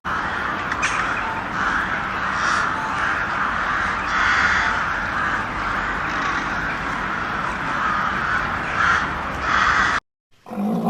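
Crows cawing, many calls following and overlapping one another, until the sound cuts off suddenly near the end.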